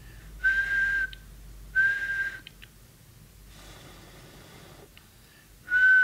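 A person whistling a steady single note in short blasts: two whistles of about half a second each, then a pause, and a longer held whistle starting near the end.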